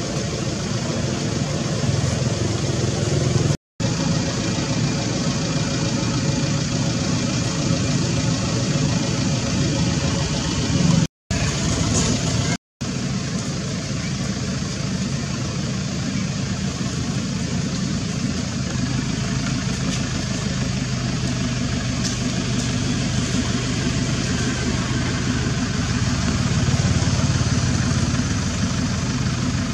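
Steady background engine noise from motor vehicles, with a low steady hum that grows stronger about two-thirds of the way through; it drops out briefly three times.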